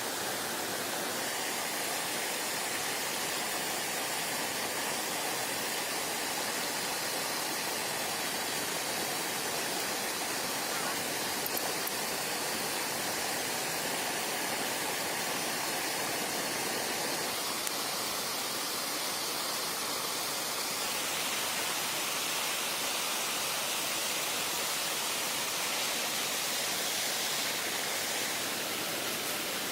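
Steady rushing noise with no breaks, its tone shifting slightly a little past halfway.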